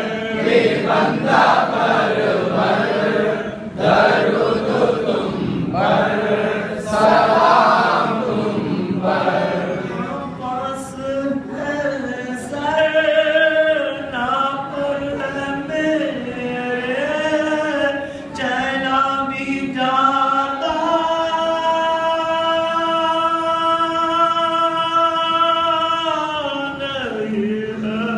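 Men's voices reciting a naat, an Islamic devotional song, unaccompanied. A dense, rhythmic group chant comes first. After about ten seconds it gives way to a melodic sung line that ends in one long held note near the end.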